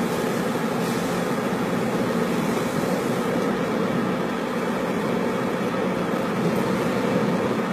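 Steady road and engine noise of a car, heard from inside the cabin while driving.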